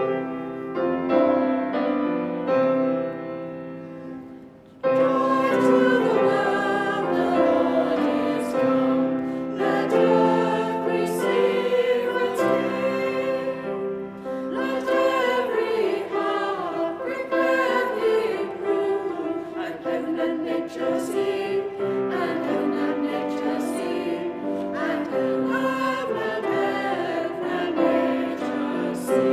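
A piano plays an introduction of held chords, then a choir of cathedral choristers comes in about five seconds in and sings with piano accompaniment.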